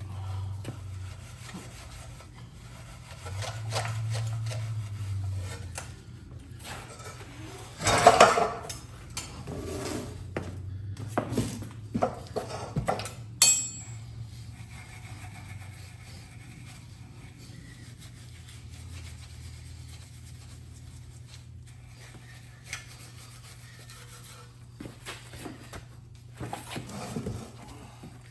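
Scattered rubbing, scraping and clattering of handled hard objects over a low steady hum, with the loudest clatter about eight seconds in and a sharp click a few seconds later.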